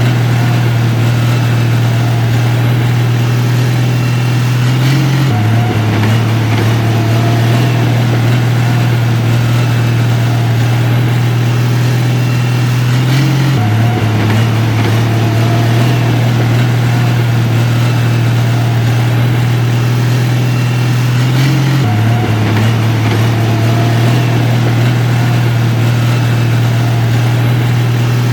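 Heavy-equipment diesel engine running steadily with a deep hum, shifting slightly in pitch about every eight seconds.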